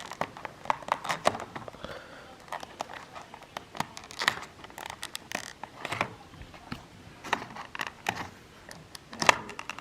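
Model-airliner packaging being handled and opened: plastic and cardboard crinkling and rustling, with irregular small clicks and taps and one sharper knock near the end.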